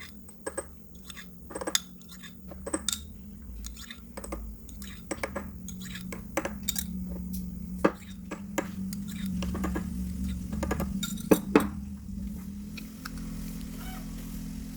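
Dishes and cutlery clinking and knocking as kitchenware is handled: many short, sharp clinks at irregular intervals over a steady low hum.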